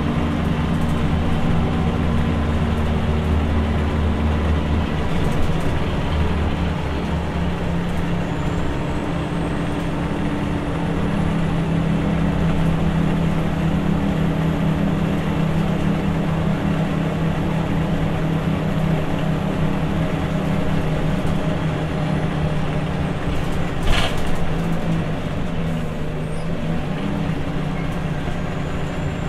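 Scania L94UB bus's rear-mounted 9-litre six-cylinder turbocharged CNG engine running under way, heard from inside the cabin; a quiet engine note that shifts in pitch a few seconds in and again around a third of the way through. A faint high whine comes in about 8 seconds in and fades about 23 seconds in, and there is one brief sharp noise about 24 seconds in.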